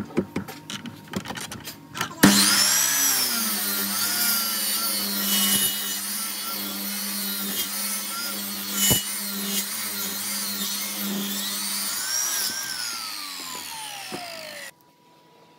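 A few knocks as a thick wooden block is set against the fence of an electric miter saw. About two seconds in, the saw starts suddenly and cuts through the block with a steady hum and a wavering whine. Near the end the motor winds down with a falling whine before the sound cuts off.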